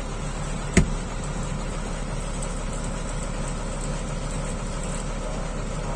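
Truck's diesel engine idling steadily, heard from inside the cab, with one sharp click just under a second in.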